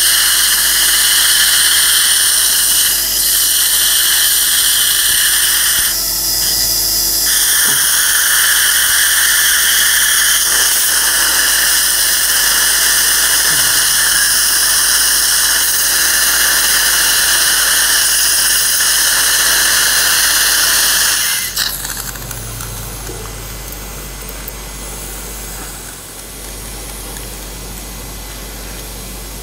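Implant surgical handpiece whining steadily at a high pitch as a drill bores the implant site in the jawbone. It stops about two-thirds of the way through, leaving a quieter steady hiss.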